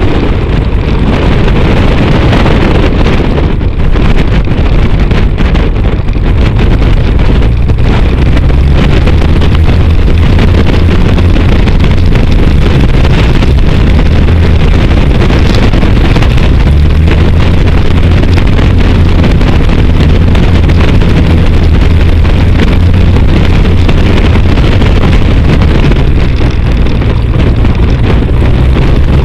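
Pitts S2B biplane's six-cylinder Lycoming engine and propeller running steadily at taxi, a loud low drone with wind buffeting the tail-mounted microphone.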